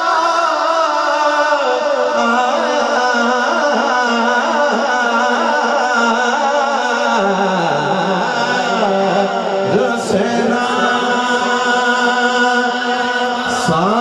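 Naat recitation: a man singing a devotional naat into a microphone in long, wavering held notes.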